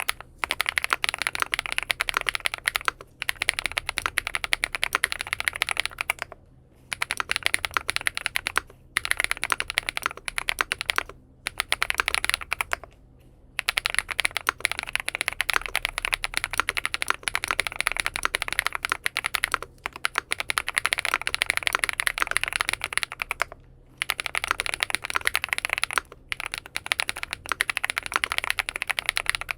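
Fast typing on a full-aluminium XINMENG M71 mechanical keyboard fitted with BSUN Bunny switches: rapid key clicks in runs of a few seconds, broken by short pauses.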